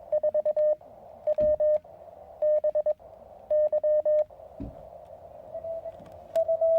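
Morse code (CW) tones from a Weber MTR QRP transceiver on the 20 m band, at a single steady pitch over receiver hiss. There are four loud keyed groups of dots and dashes in the first four seconds, then fainter Morse at the same pitch, and a loud group again near the end.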